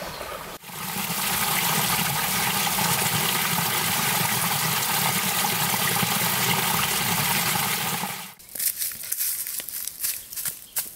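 Water running steadily over and between rocks in a shallow stream, close up. About 8 seconds in it cuts off, and crackling footsteps on dry bamboo leaves follow.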